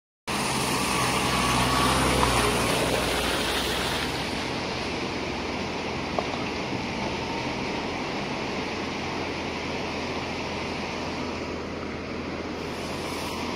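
A wheel loader's diesel engine runs under a steady rushing noise, with the engine most prominent in the first few seconds. A single sharp click comes about six seconds in.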